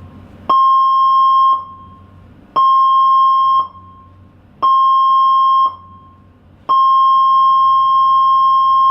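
Container ship's alarm sounding for a fire drill: a steady, high electronic tone in three one-second blasts with one-second gaps, then a long continuous blast from about seven seconds in.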